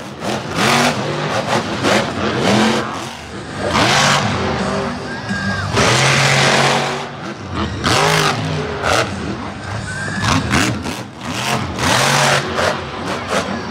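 Monster truck engine revving hard over and over, its pitch climbing and dropping with each throttle blip, with loud rushes of noise between the revs; the longest and loudest comes about six seconds in.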